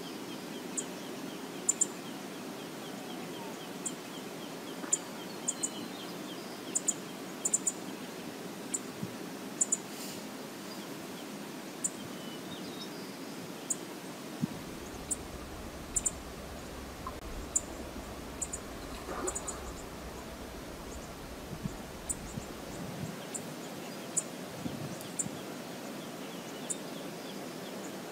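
Steady rush of river water with scattered short, high bird chirps and a brief twittering call in the first few seconds. A low rumble joins for about eight seconds in the middle.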